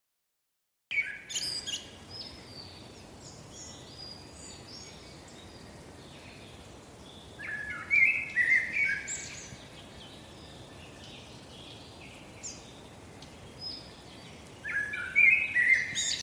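Birds chirping in short bursts of song, loudest in two spells about halfway through and near the end, over a faint steady hiss; it starts after about a second of silence.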